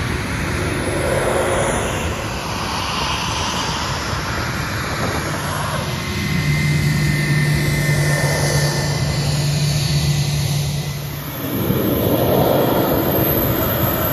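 Jet airliners taxiing past at close range: Airbus A320-family jets, then an Embraer E-Jet, their engines running at taxi power. There is a steady low hum through the middle, and the sound changes abruptly about six seconds in and again near the end as one aircraft gives way to the next.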